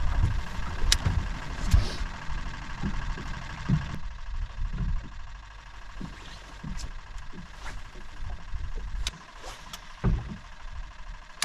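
Wind buffeting the microphone in uneven low rumbles over the faint steady whine of an electric bow-mount trolling motor, with a few sharp clicks.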